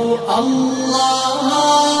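Chanted vocal music: a voice holds one long sung note after a brief break near the start.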